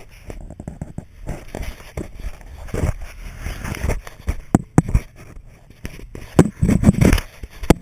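Handling noise from a loose camera rubbing and knocking against orange waterproof rain gear: irregular rustling and scraping with sharp knocks, which come thicker and louder in the second half.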